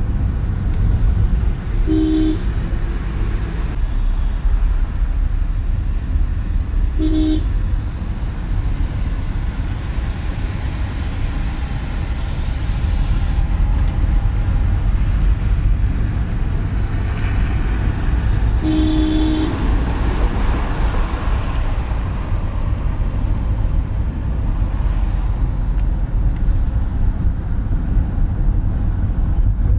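Steady low rumble of engine and road noise inside a moving Suzuki car's cabin. A vehicle horn toots briefly three times: about two seconds in, again about seven seconds in, and once more past the middle.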